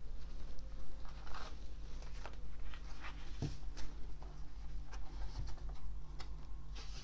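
A new, stiff cardboard tarot deck being shuffled and handled by hand: irregular soft flicks, taps and rustles of the cards.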